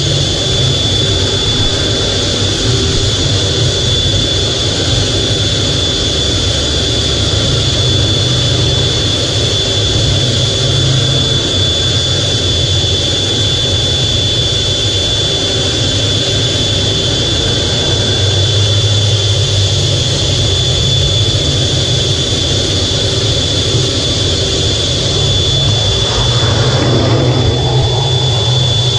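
F/A-18 jet engine noise heard from inside the closed cockpit: a steady, even rumble under a constant high-pitched whine.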